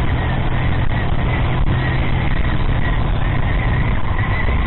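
Motorcycle engine running at a steady cruising speed, with a steady rush of wind and road noise over the microphone.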